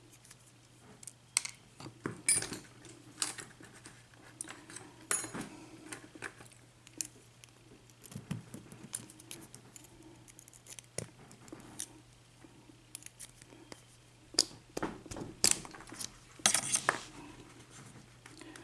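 Small metal tools clicking and scraping on a brass lock cylinder, irregular light metallic clinks as a cap screw is worked out of the pin housing to free a stuck pin, over a faint steady hum.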